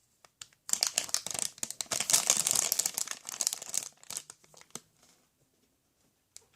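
Dense crinkling and crackling, like stiff plastic or paper being crumpled, for about three seconds, then a few scattered clicks.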